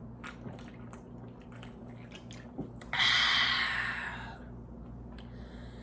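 A person eating: small wet clicks of chewing. About three seconds in comes a sudden loud hiss that lasts just over a second and fades out.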